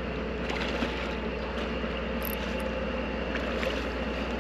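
Diesel engine of a passing canal barge running with a steady low drone.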